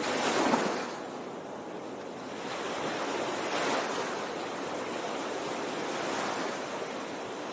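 A rushing noise with no tones in it, swelling and easing a few times.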